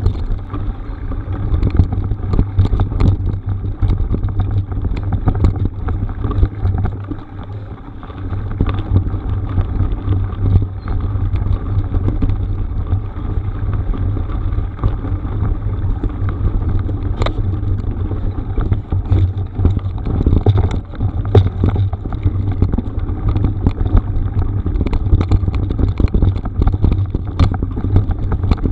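Loud, steady wind rumble on the camera microphone while moving along a rough gravel road, with scattered sharp clicks and rattles from the tyres and gear on the stones. The noise eases briefly about seven seconds in.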